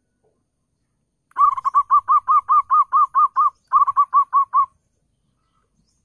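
Zebra dove (perkutut) calling: a rapid run of short cooing notes, about five a second, with a brief break midway.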